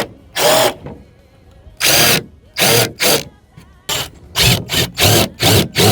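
Power drill boring pilot holes into a board, run in a series of short bursts with brief pauses between.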